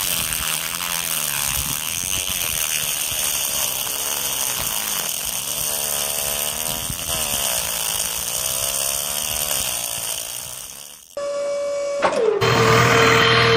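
Small DC motor spinning a plastic drill bit into sand: a steady whir whose pitch dips and recovers as the bit bites in. It cuts out about 11 seconds in, and background music with a steady tone follows.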